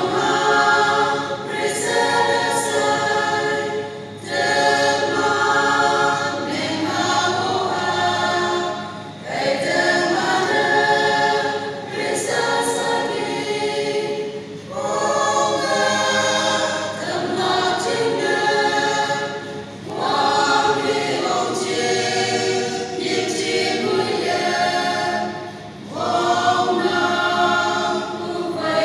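Mixed choir of women and men singing together, line by line, with a brief dip for breath about every five seconds.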